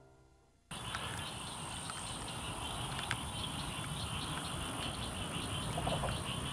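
A sustained piano chord fades out. About a second in, outdoor ambience cuts in: insects chirring steadily, with a chirp repeating about three to four times a second over a low, even hiss.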